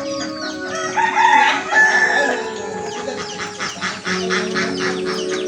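A rooster crows about a second in, followed by a run of quick repeated clucking calls, over background music with long held notes.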